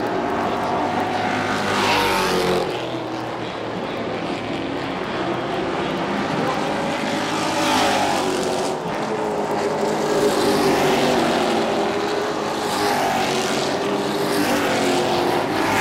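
Pro Truck race trucks running at racing speed around a short paved oval, engines swelling and dropping in pitch as they pass, several times over.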